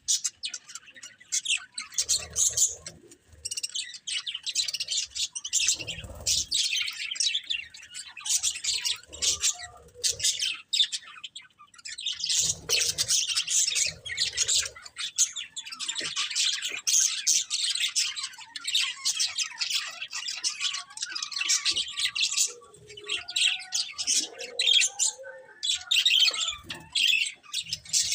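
Budgerigars chattering and chirping, a dense run of quick high twitters and warbles with short squawks, pausing briefly a few times.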